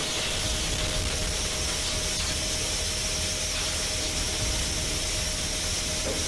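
A steady, even hiss that does not change, with a faint steady tone underneath.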